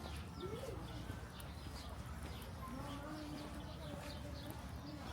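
Outdoor ambience: small birds chirping repeatedly over faint distant voices and a low steady hum.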